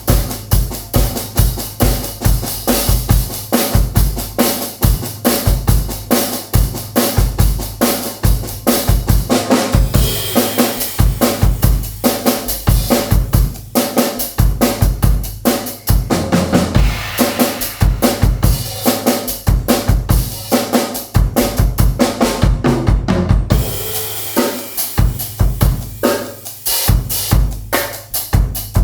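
Drum kit played solo at a fast, dense groove: kick drum, snare, toms, hi-hat and cymbals. Strokes run continuously, with the cymbal wash dropping out for a moment about three-quarters of the way through before the playing picks up again.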